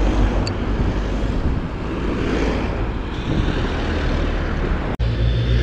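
Wind rushing over a bike-mounted camera at speed, with a car's engine and tyres running close alongside. The sound cuts out abruptly for an instant near the end.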